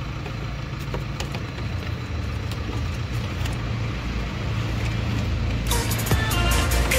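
Steady low background rumble with a few faint clicks from the plastic dashboard switch panel and its wiring being handled and pushed into place. Electronic music comes in near the end.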